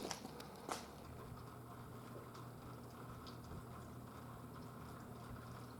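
Faint room tone with a steady low hum, after two small clicks in the first second.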